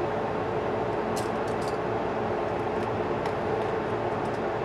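Steady background hiss with a low hum that does not change. A few faint light ticks come through, about a second in and again past the three-second mark, from fingers handling a small cardboard box.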